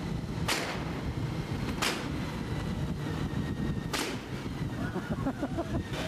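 Motorcycle engines running while riding in traffic, with three sharp cracks standing out over the steady rumble, about a second and two seconds apart.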